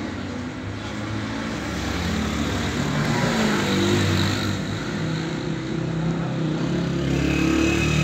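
A motor vehicle engine running off-screen, its pitch wavering up and down and its level swelling about halfway through and again near the end.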